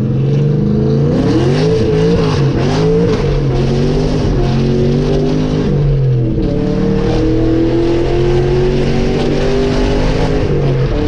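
Cammed Camaro SS V8 engine running under way, its note rising and falling unevenly in the first few seconds, then holding steady; about six seconds in the pitch drops briefly, as at a gear change, and comes back up to a steady, higher pull.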